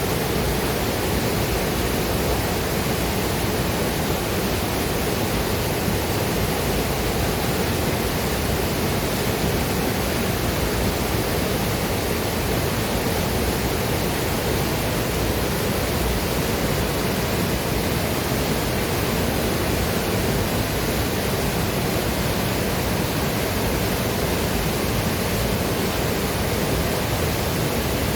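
Waterfall and river water rushing in a steady, even roar of noise with no breaks.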